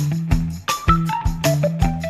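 Instrumental background music with a steady beat: drum hits, held bass notes and a short melody.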